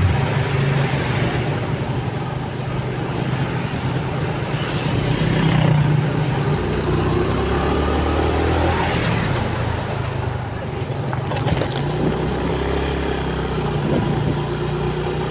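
Motorcycle engine running steadily while riding, under broad road and wind noise.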